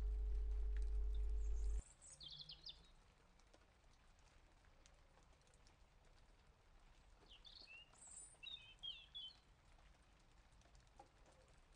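A steady low electrical hum that cuts off suddenly about two seconds in, then faint bird chirps in two brief bouts.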